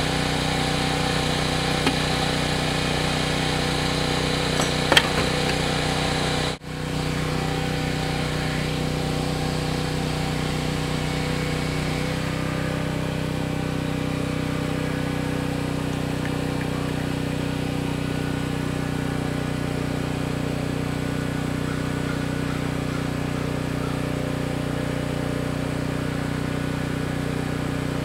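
A steady engine-like hum with several held tones runs on evenly, with a light metallic clink about five seconds in and a momentary dropout near seven seconds.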